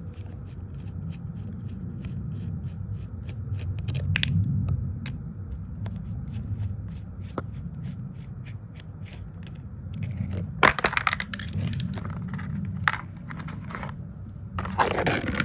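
Hand screwdriver work on a ride-on toy's battery box: scraping and small clicks of a screw being unscrewed and the plastic parts being handled, with louder scraping about ten and a half seconds in and again near the end, over a steady low hum.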